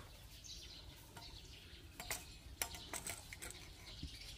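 Quiet background with a few faint, sharp clicks scattered through the middle.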